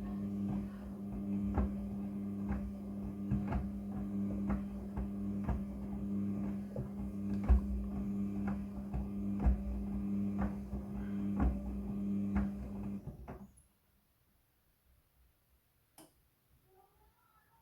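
Front-loading washing machine running: a steady motor hum with a knock about once a second as the drum turns. It stops suddenly about 13 seconds in, leaving near silence broken by one click.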